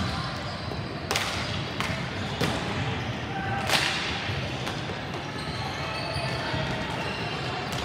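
Ball hockey sticks and ball clacking on the sport-court floor during play: four sharp knocks over a few seconds, the loudest about four seconds in, over steady background noise in the hall.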